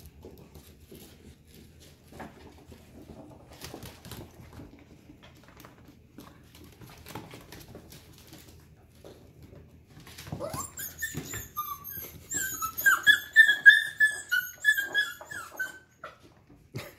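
Mini goldendoodle puppies playing on a hardwood floor: faint taps and scuffles, then from about ten seconds in a loud run of short, high-pitched puppy yips and whines for several seconds.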